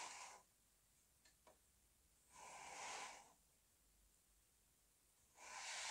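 Near silence broken by three soft breaths, about three seconds apart.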